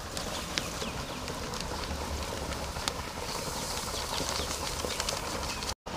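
Open-air ambience: a steady hiss with a low rumble and a few faint ticks, cutting out completely for a moment near the end.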